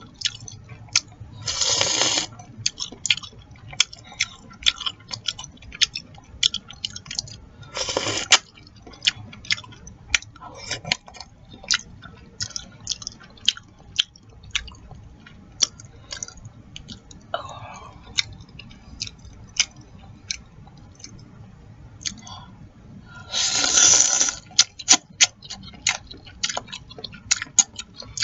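Close-miked eating of chicken noodle soup: continual wet chewing and lip smacks. Three long slurps of soup come about two seconds in, about eight seconds in, and near the end.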